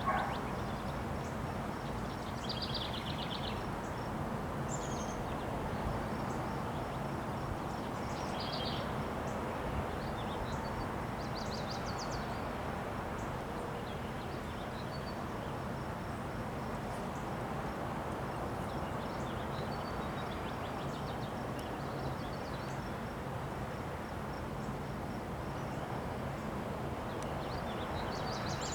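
Strong wind of a windstorm blowing steadily, an even noise that never lets up, with short bird chirps heard over it every few seconds.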